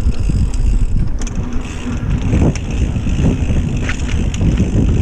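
Mountain bike ridden along a dirt trail, heard from a bike- or rider-mounted action camera: wind buffeting the microphone over the rumble of the tyres, with frequent short clicks and rattles from the bike.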